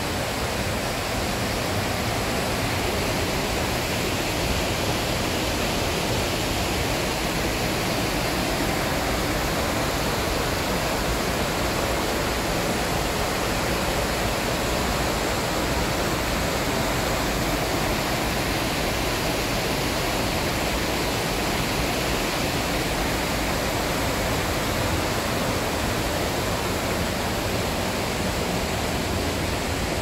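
Mountain stream running over rocky cascades: a steady, even rush of water.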